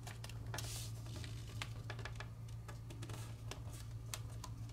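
Kami origami paper being folded and creased by hand: scattered light crackles and clicks of the paper under the fingertips, with a brief rustle about two-thirds of a second in. A steady low hum runs underneath.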